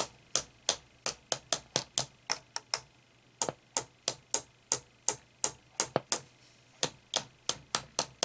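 Quick, uneven tapping clicks, about three or four a second with a couple of short pauses, as a small plastic-tipped tool taps an AF117 germanium transistor inside a Roberts R300 transistor radio. The radio gives only clicks and crackle with the taps, the noise of tin whiskers breaking apart inside a transistor that still won't work.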